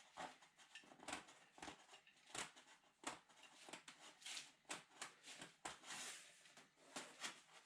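Faint handling noises: scattered soft clicks and rustles, with a short longer rustle about six seconds in.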